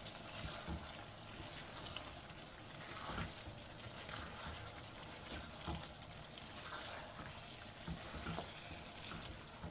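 A spatula stirring chicken and vegetable masala in a nonstick wok over the heat: a faint steady sizzle with soft scrapes and a few knocks of the spatula against the pan.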